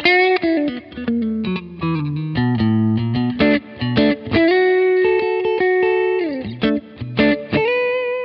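Electric guitar lead played through a small amp with reverb: a Mexican-made Fender Telecaster fitted with a Cavalier Wolf neck pickup, into a Vintage Sound 22SC amp with an Eminence GA-SC64 speaker. Picked single-note lines step down in pitch over the first few seconds, then a long sustained note is let down from a bend about six seconds in, followed by more quick phrases.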